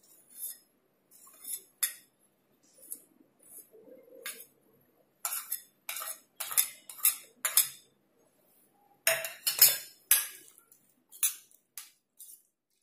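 Steel spoons clinking and tapping against small stainless-steel bowls and a steel kadhai as spices are tipped into chopped vegetables and the mix is stirred. Irregular sharp clinks, loudest in a cluster about nine to ten seconds in.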